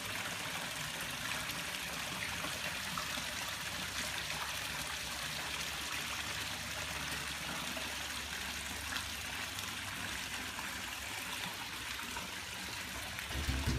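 Steady trickle of moving swimming-pool water, an even continuous hiss. Music with a beat comes in near the end.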